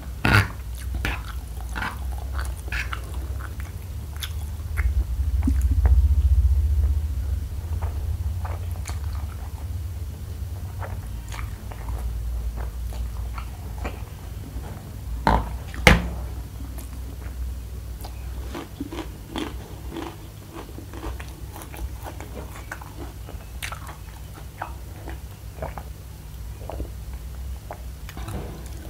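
Close-miked chewing and biting of a mouthful of spicy instant noodles, with many small wet clicks and crunches. There is a louder sharp crack about halfway through.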